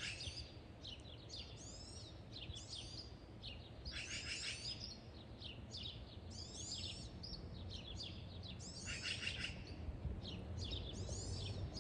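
Songbirds singing: quick chirps and sweeping high notes, repeated many times, over a low steady rumble.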